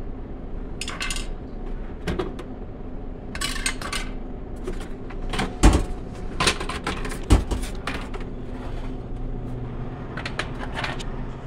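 Plastic parts inside an Ice-O-Matic undercounter ice machine being handled and shifted: a run of clicks, knocks and rattles, with two sharper knocks about halfway through, over a steady low hum.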